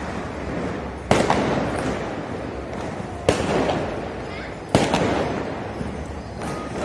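Firecrackers exploding: three sharp, loud bangs about one and a half to two seconds apart, each followed by an echo.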